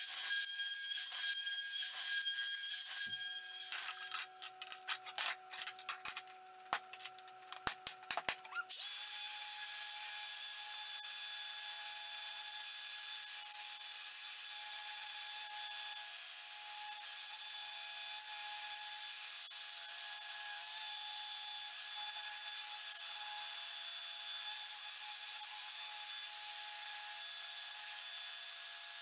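A handheld router on a flattening sled runs at first and stops a few seconds in, followed by a few seconds of scattered knocks and clicks. About nine seconds in, a Festool random orbital sander starts up on a wooden panel and runs with a steady high whine to the end.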